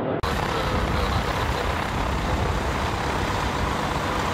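Pitts Special biplane's piston engine and propeller running steadily as the aircraft taxis.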